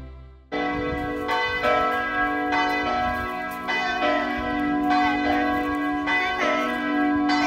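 Church bells start ringing about half a second in, sounding stroke after stroke, with each ringing tone held and overlapping the next.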